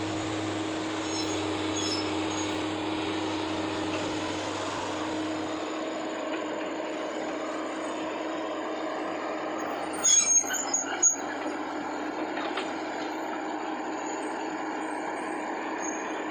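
Excavator diesel engine running steadily with a constant hum. About ten seconds in comes a quick cluster of sharp metallic knocks, five or six within about a second.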